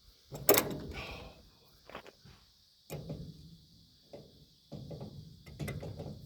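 Metal tools and parts being handled: a loud metal clank with a short ring about half a second in, then several lighter knocks and clanks.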